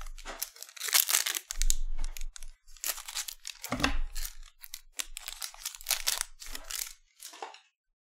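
Foil wrapper of a Bowman Chrome trading-card pack crinkling and tearing as the pack is handled and ripped open, in a series of irregular crackly bursts.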